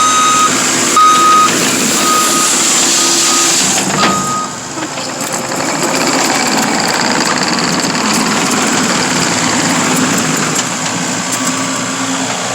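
Skid steer running, its backup alarm beeping about once a second for the first four seconds. After that a steady rushing noise takes over, the pick-up broom brushing loose stone into its bucket.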